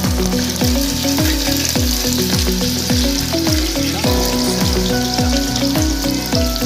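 Food sizzling as it fries in hot oil, a steady hiss, over background music with a steady beat.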